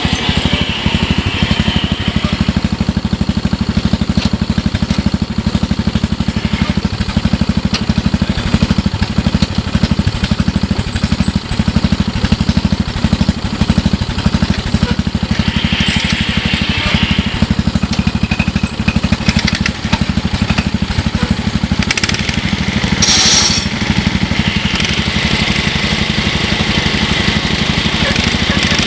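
Small riding-mower engine running steadily at idle, its firing pulses even and unbroken.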